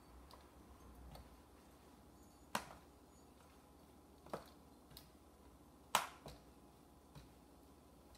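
Kitchen tongs clicking and tapping against a plastic tub while chicken is turned in flour: about five scattered light clicks, the loudest about six seconds in.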